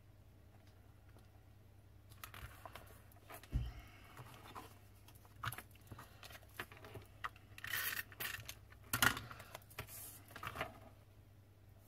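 Paper strips being handled and stuck together with a SNAIL tape runner: light rustles and small clicks starting about two seconds in, a soft thump about three and a half seconds in, and short rasping strokes of the runner laying adhesive around eight and nine seconds in.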